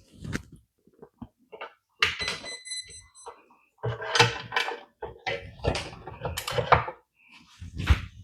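Hydraulic RC excavator being powered up by plugging in its XT60 battery connector: a few short clicks, then a short electronic startup beep about two seconds in, followed by irregular louder knocks and handling sounds.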